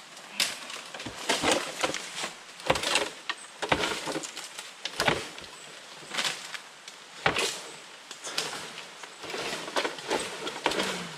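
Irregular sharp wooden knocks and cracks of bamboo being cut and handled, a dozen or so spread unevenly through the stretch.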